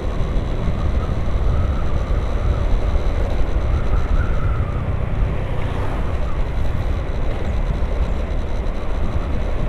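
Honda Vario 150 scooter under way at street speed, its small single-cylinder engine running steadily beneath a heavy low rumble of wind buffeting the microphone.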